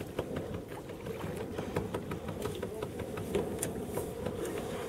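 Steady rushing of wind and water aboard a moving boat at sea, with scattered small clicks through it.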